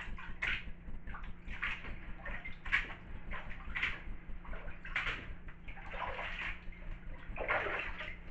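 Bathwater sloshing and splashing around booted feet stepping and shifting in a full bathtub: a series of irregular sloshes, roughly one a second, with a longer splash near the end as a boot comes up out of the water.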